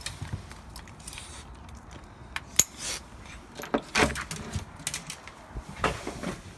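Light metallic jingling of keys with several sharp clicks and rattles as a metal door is opened and passed through.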